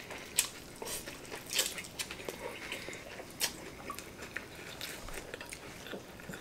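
A person chewing food close to the microphone, with scattered soft, irregular crunching clicks.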